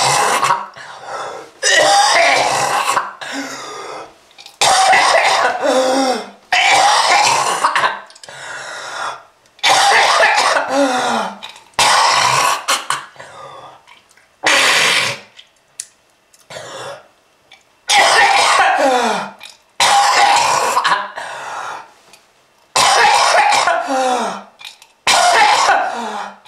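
A person coughing hard in repeated bouts, with about eleven harsh coughs roughly two seconds apart. Many end with a rasp that drops in pitch. It is presented as a smoker's cough.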